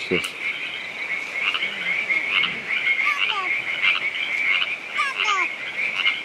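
A chorus of frogs calling steadily and densely, with a few short falling calls heard about three and five seconds in.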